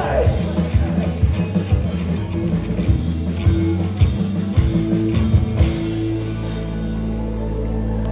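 Live rock band playing loudly, drums pounding over guitar and bass; about five and a half seconds in the drums stop and a low chord is left ringing.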